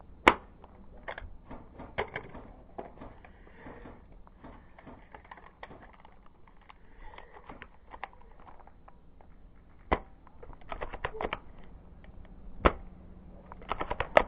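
Airsoft sniper rifle firing: four sharp single cracks spread out, the first and loudest just after the start, with quieter clicks and clatter in short groups between the shots.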